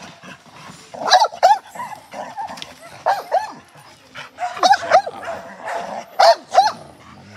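A dog barking repeatedly, the barks coming mostly in quick pairs about every second and a half.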